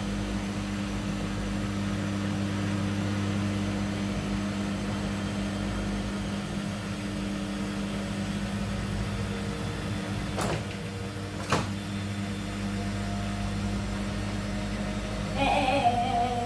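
Arctic washing machine running with a steady motor hum, with two sharp knocks about ten and eleven seconds in.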